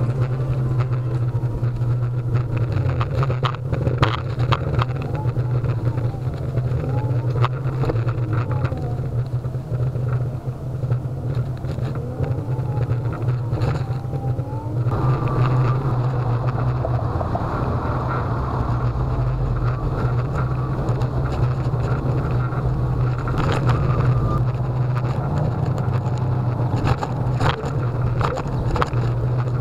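Solowheel self-balancing electric unicycle riding: its hub motor whines, the pitch gliding up and down as it speeds up and slows, over a steady low hum and rolling noise, with scattered clicks.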